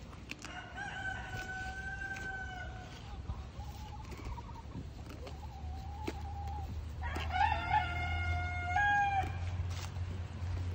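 Rooster crowing: three long, held crows, the middle one fainter and the last the loudest, with a wavering start.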